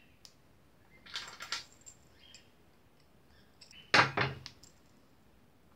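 Steel rings and metal pliers being handled: light metallic clinks and jingling about a second in, then a single louder clack with a short ring about four seconds in.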